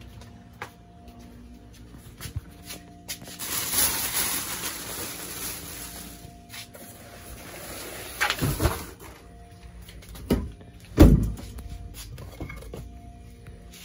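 Soft background music with steady notes, under a rushing noise a few seconds in and several knocks and thumps from things being moved about. The loudest is a heavy thump about eleven seconds in.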